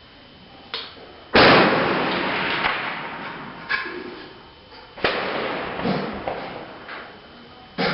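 Rifle shots on a range: three loud reports, about a second in, about five seconds in and near the end, each followed by a long echoing tail, with fainter, more distant shots between them.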